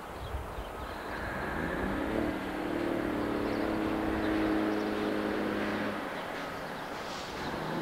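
Class 37 diesel locomotive's English Electric engine hauling tank wagons. Its note rises about two seconds in, holds steady, then eases off near the end, over a low rumble.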